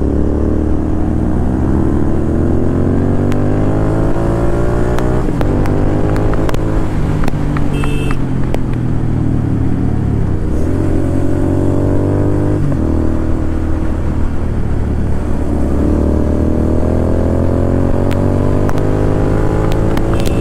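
Royal Enfield Continental GT 650's parallel-twin engine accelerating through the gears. The pitch climbs slowly, drops at an upshift about five seconds in and again about thirteen seconds in, then climbs again.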